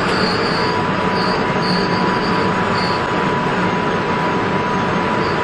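UTA FrontRunner commuter train running along the track, heard from the leading cab: a steady rumble of wheels and running gear. A few short high-pitched squeals come in the first three seconds, and a steady high tone starts about half a second in.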